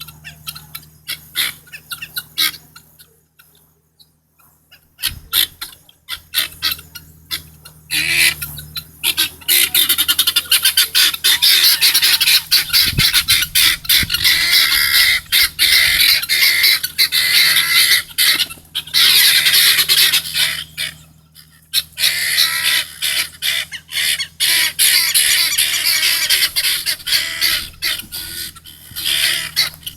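A flock of helmeted guineafowl calling: scattered calls at first, then many loud overlapping calls from about eight seconds in, easing off briefly about two-thirds of the way through before picking up again.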